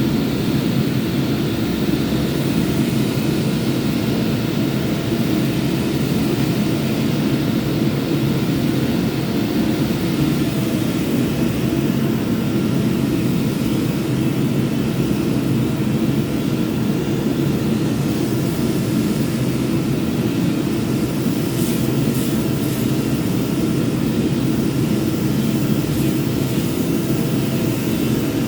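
Power sander running steadily, a constant motor hum with sanding noise and no change in speed.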